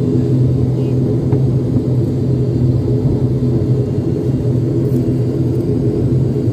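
Passenger airliner's engines droning steadily, heard from inside the cabin: an even hum with a low rumble beneath.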